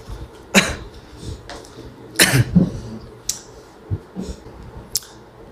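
A man's short breathy huffs through the mouth or nose, a few of them spaced apart, with a couple of sharp clicks and low knocks from handling the phone in between.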